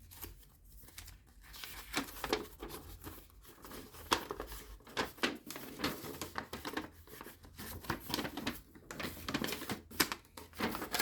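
Paper inserts and packaging being handled and unfolded: irregular crinkling and rustling crackles.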